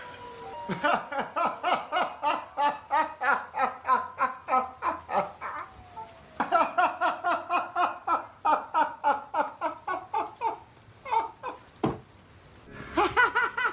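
Hearty laughter in long runs of rapid ha-ha pulses, about four or five a second. It breaks off briefly about six seconds in and for longer near the end before starting up again.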